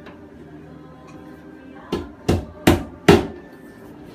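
Four sharp knocks on the drywall, about 0.4 s apart, in the second half, as the wall is broken open to reach the copper pipe behind it.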